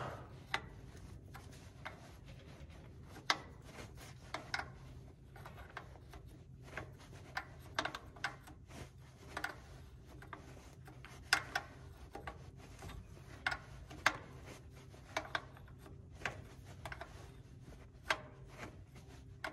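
Light, irregular metal clicks and rubbing as a fuel injector line nut is turned down onto its injector with a small wrench, over a steady low hum.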